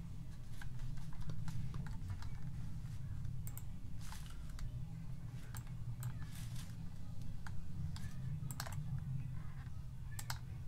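Scattered single clicks of a computer mouse, picking letters one at a time at an irregular pace, over a steady low hum.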